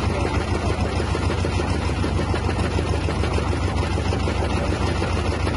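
Engine of a self-propelled threshing machine running steadily at idle, an even low hum with a regular pulse.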